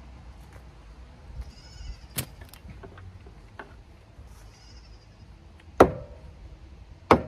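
A few sharp hammer knocks on wood framing, seconds apart, the loudest about six seconds in and another just before the end. A faint high-pitched call sounds early on.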